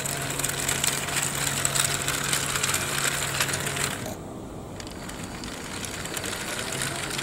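Small 6 V geared DC motors driving the plastic tracks of a toy excavator's crawler base slowly over paving slabs: a whirring, clicking rattle of gearboxes and track links. It stops briefly about four seconds in, then carries on more quietly.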